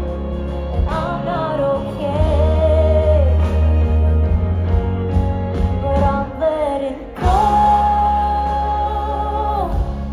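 Live pop-rock band with a female lead vocal, amplified through a festival PA and heavy in the bass. The singer's melody moves over the band and settles into one long held note about seven seconds in, after a brief drop in the music.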